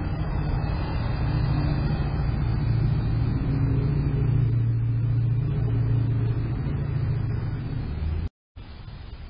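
Steady low engine hum, swelling a little in the middle and then cutting off abruptly near the end, followed by a fainter hum.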